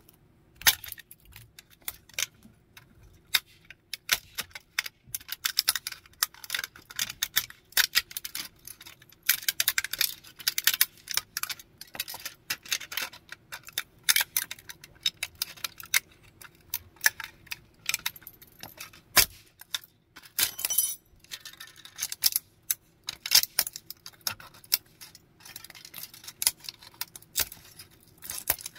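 A plastic toy train caboose cracking and crunching under high-heeled sandals on concrete, its pieces snapping and grinding against the pavement. Irregular runs of sharp cracks and clicks come on and off throughout, with a few loud snaps.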